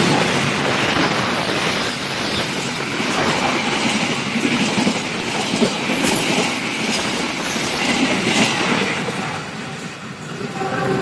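Argo Parahyangan passenger train running at speed, its wheels clattering over the rails in a steady rushing noise with occasional sharper knocks.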